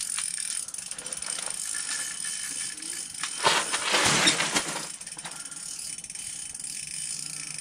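Small ice-fishing spinning reel being cranked fast, its gears ticking and rattling as a hooked fish is wound in. About three and a half seconds in, a louder rushing burst lasts about a second.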